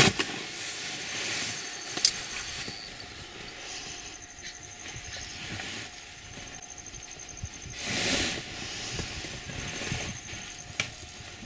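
Open-air ambience: a high, evenly pulsed insect-like trill comes and goes over a hissing background that swells twice, with a few sharp clicks.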